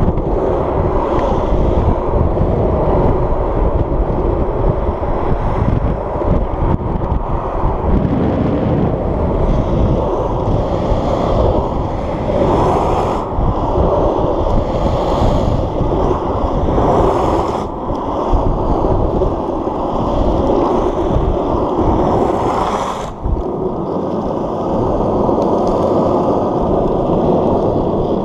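Longboard wheels rolling fast over asphalt, with heavy wind buffeting on the microphone. A few brief, louder hissing swells come through in the middle stretch.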